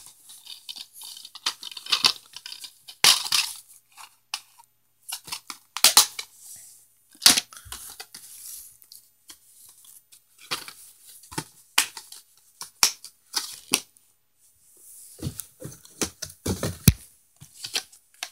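Plastic DVD cases being handled: a string of sharp clicks and knocks with short bursts of rustling, as cases are picked up, flipped and set down.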